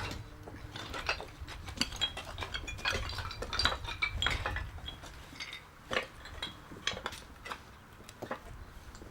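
Hard fire rubble clinking and clattering: a dense run of sharp clinks in the first half, then a handful of single clinks spaced out toward the end.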